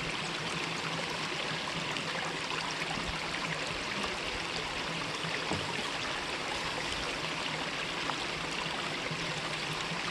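Mountain valley stream running steadily: an even, unbroken rush of flowing water.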